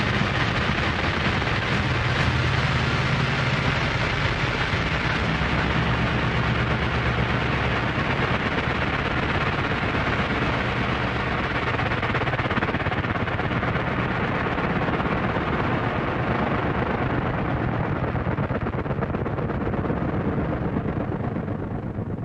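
Dense, crackling noise with a low steady hum underneath; the hum fades away about halfway through while the crackling noise carries on.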